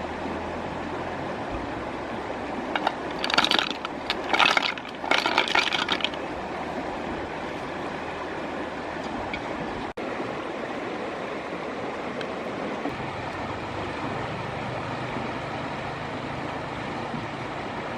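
Steady rushing of river water, with a cluster of sharp cracking and crunching noises between about three and six seconds in.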